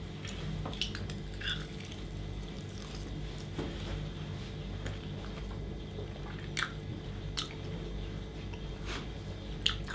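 Two people chewing pieces of cooked chicken, with faint scattered mouth clicks and smacks, over a steady low hum.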